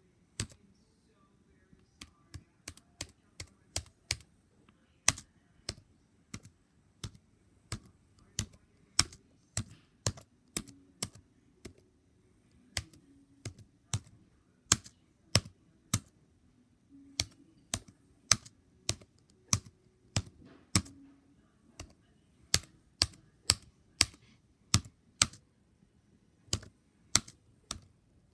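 Mechanical keyboard keys pressed one at a time in slow, uneven hunt-and-peck typing: single sharp clicks about one or two a second, some struck harder than others, with short pauses between runs.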